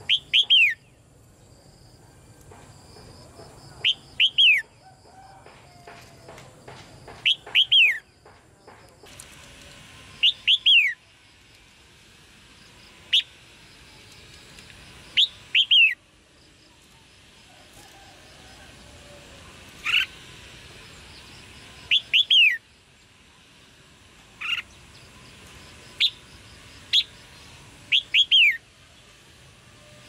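Red-whiskered bulbul giving sharp chirping calls, each note a quick downward sweep, mostly in clusters of two or three and repeated every two to three seconds.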